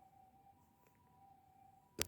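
Faint two-tone hi-lo ambulance siren (the Japanese "pee-po"), switching back and forth between a higher and a lower steady note.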